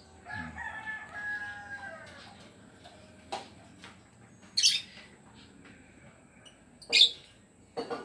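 Caged lovebirds give two short, sharp, high shrieks, about four and a half and seven seconds in, the loudest sounds here. Before them, a longer drawn-out bird call lasts under two seconds, and there are a couple of light clicks.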